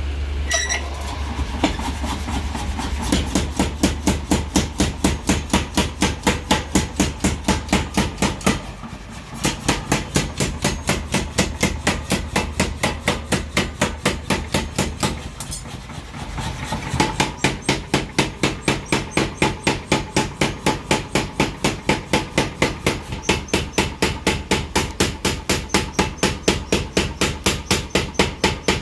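15 kg mechanical power forging hammer running, its ram striking in a fast, even rhythm of about three blows a second. A low motor hum runs under it in the first half. The blows ease off briefly twice.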